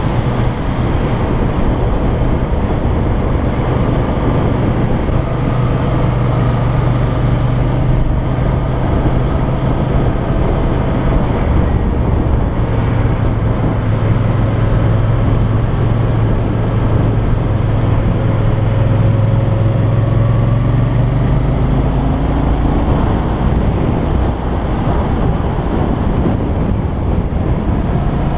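Yamaha TDM 900 parallel-twin engine running steadily under way, heard from on the bike with wind rushing over the microphone; the engine eases off briefly about three-quarters of the way through, then picks up again.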